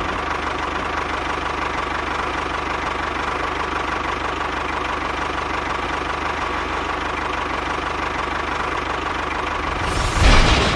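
A small motor running steadily with a fast, even rattle, with a louder burst just before the end.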